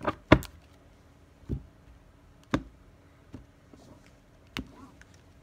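Tarot cards being handled: about six separate sharp taps and clicks, roughly a second apart and loudest at the start, as the deck is squared and cut into piles on a cloth-covered table.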